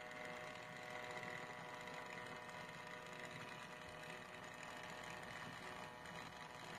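Model railway locomotive's small DC motor running at slow speed, fed pulse-width-modulated power from an Arduino Nano through an L298N motor driver. It makes a faint, steady whine with several held tones over a low hum.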